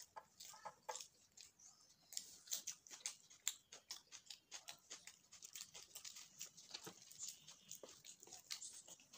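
Close, wet chewing and lip smacking of a person eating a mouthful of bhature and chole, a quick irregular run of soft clicks.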